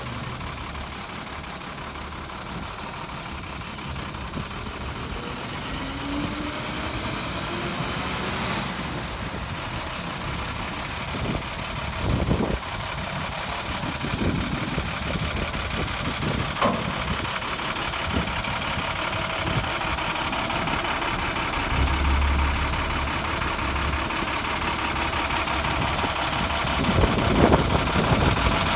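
Diesel engine of a 2008 International 7500 WorkStar dump truck running steadily, growing gradually louder, with a few short clunks.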